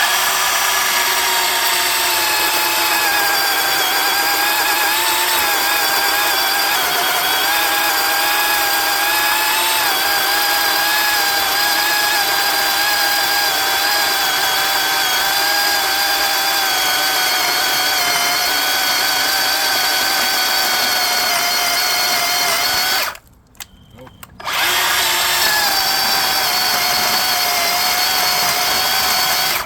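Bauer 20 V cordless 10-inch electric chainsaw cutting through a log at its full bar capacity: a loud, steady motor whine that slowly drops in pitch as the saw bogs down under load. It stops once for a moment about 23 seconds in, then starts up again and runs on.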